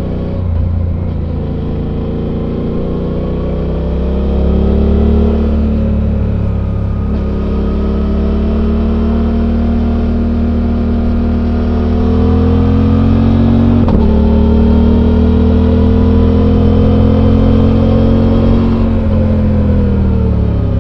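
Suzuki V-Strom 800's parallel-twin engine through its stock exhaust, heard on board while riding. It pulls up in pitch, shifts gear with a sharp break about two-thirds of the way through, climbs again, then drops off as the throttle closes near the end.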